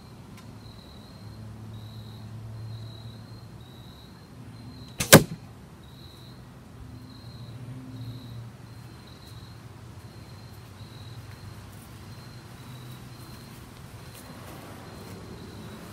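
One arrow shot from a Bearpaw Bodnik Crow recurve bow, heard as a single sharp thwack about five seconds in as it hits the foam block target. A faint repeated high chirp runs behind it.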